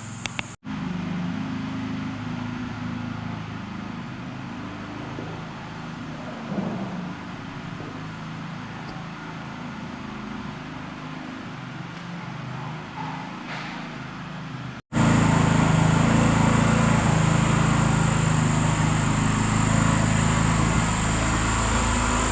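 An engine running steadily, heard in video clips cut together; after a cut about fifteen seconds in, it is much louder.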